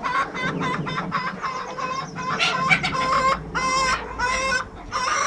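Silkie chickens clucking and calling, a run of short calls followed by several longer drawn-out calls in the second half.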